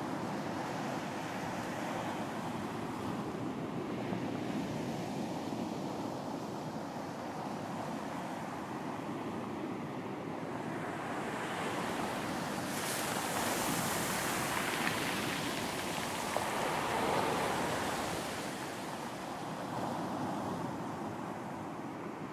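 Sea waves washing on a beach: a steady surf rush, with one wave breaking and hissing up the shore through the middle stretch before easing off.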